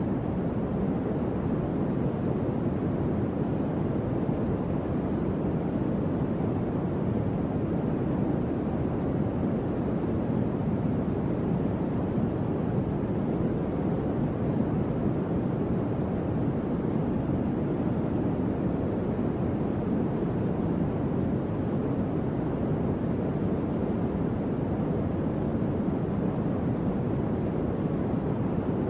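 Electric fan running steadily: an even, low whooshing of moving air with no change in speed.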